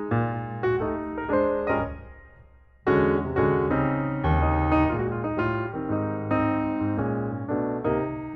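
Background piano music. The notes die away about two seconds in, and a fuller, louder passage starts abruptly at about three seconds.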